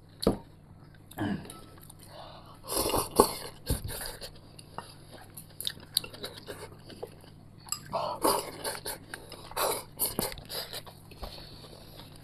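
Close-up eating sounds: a person chewing mouthfuls of stir-fried potato strips and sauerkraut, with irregular clicks of chopsticks against a porcelain bowl and a few louder mouth noises.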